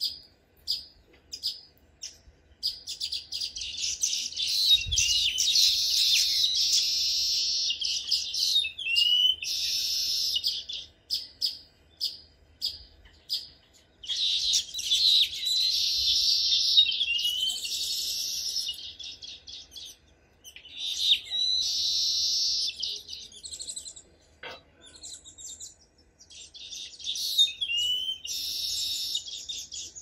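Baya weavers calling: runs of short sharp chips, about two a second, alternating with long sizzling chatters that end in a rising wheezy whistle, repeated several times.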